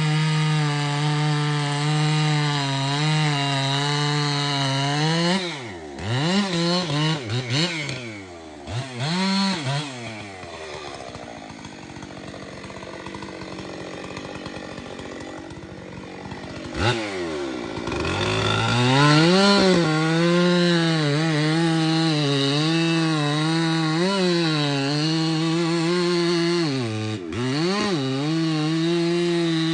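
Chainsaw running at full throttle, its pitch wavering under load as it cuts into a large tulip poplar trunk. About five seconds in it revs up and down several times, then drops to a low idle for several seconds before being throttled back up to cutting speed for the rest of the time.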